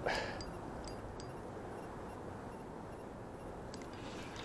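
Faint handling sounds from a spinning reel and rod while a hooked salmon is played: a short rustle at the start, then a few faint clicks over a steady low hiss.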